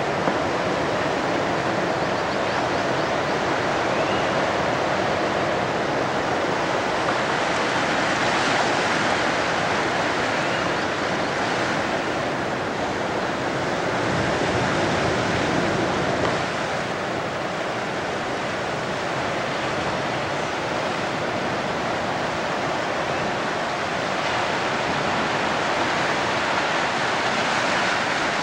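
Steady rush of ocean surf breaking and washing in, an even noise that rises and falls only slightly.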